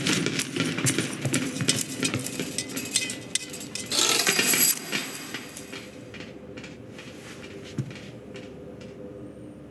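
Film sound effects: a busy run of small clicks, clinks and rattles, with a brief louder rush about four seconds in, then fading to faint scattered ticks over a low steady hum.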